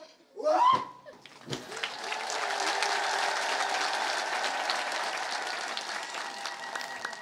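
A short rising cry from a man, then a crowd applauding steadily for several seconds, thinning out near the end.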